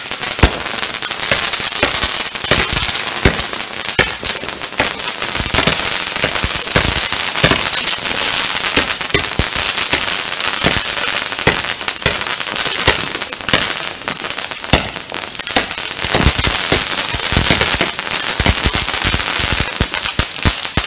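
Firework fountain burning: a steady hiss of spraying sparks, dense with sharp crackles and pops throughout.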